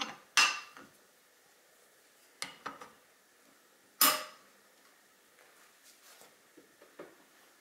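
Rifle scope rings knocking and clicking metal on metal as the scope is set onto and seated on a scope mount: a few sharp clicks, the loudest about half a second and four seconds in, then faint taps near the end.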